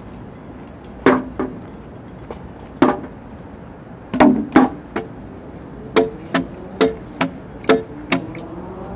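Irregular sharp knocks and whacks of objects being struck by hand, some leaving a short pitched ring, played as acoustic noise music. The strikes come more often in the second half.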